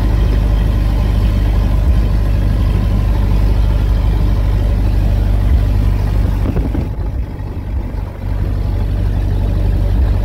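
1926 Ford Model T on the move at road speed: its four-cylinder engine running under steady load with road noise and wind buffeting the microphone. The sound drops briefly about seven seconds in, then comes back.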